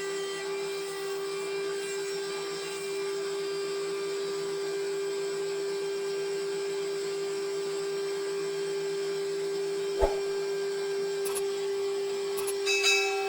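Sawmill machinery running with a steady high whine. A sharp knock comes about ten seconds in, and a few quick clicks near the end.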